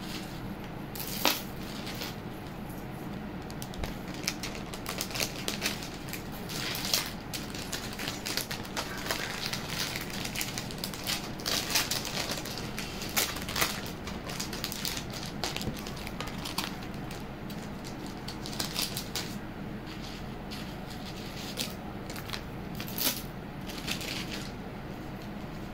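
Handling noise: irregular crackling and clicking as items are handled close to the microphone, thickest in the middle.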